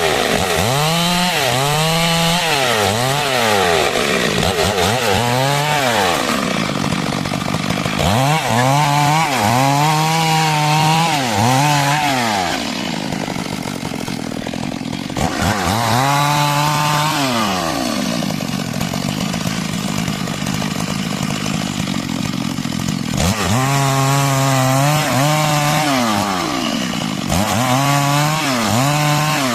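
Stihl MS 382 two-stroke chainsaw running under load while cutting wood into planks. The engine speed rises and falls over and over, held at full speed for a second or two at a time.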